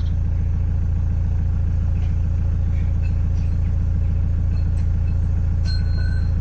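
Narrowboat's diesel engine idling: a steady low hum with an even, rapid pulse.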